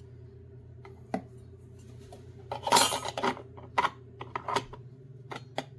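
Cups being handled and set down on a hard surface: a loud clatter about two and a half seconds in, then several sharp clicks and knocks.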